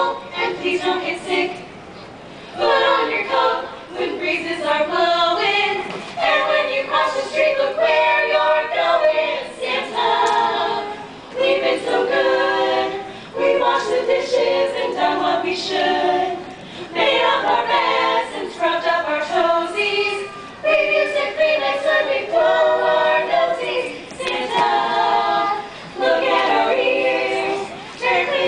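A small group of carolers singing a Christmas carol a cappella in harmony, in short phrases with brief pauses between them.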